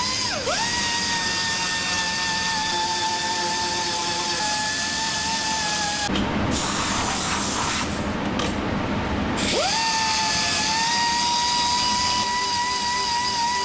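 Small high-speed rotary sanding tool whining as it grinds down the excess cured carbon fibre on a bike frame's down tube, profiling the repair back to the original wall thickness. Its pitch drops sharply under load about half a second in. Past the middle, a harsh hissing grind replaces the whine for about three seconds, then the tool spins back up and holds a steady whine.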